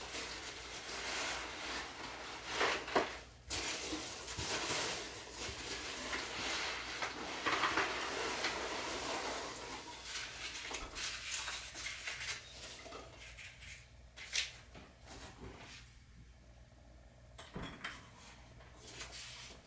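Unpacking a cardboard box: rustling of the box and its packing with clunks and clinks as the containers of epoxy are lifted out and set on a counter. The rustling runs busily for the first half, then thins to a few separate knocks, one sharp knock about two-thirds of the way through.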